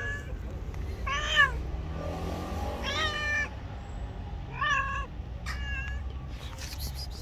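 Domestic cat meowing four times, a second or two apart, the last call fainter.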